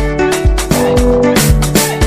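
Instrumental beat music with a steady, repeating drum pattern under held synth notes.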